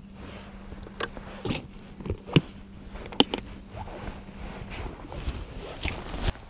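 A hard plastic tackle box being handled and shut: a series of sharp clicks and knocks as the lid comes down and the latches snap, with clothing rustling close to the microphone. A steady low hum stops about three quarters of the way through.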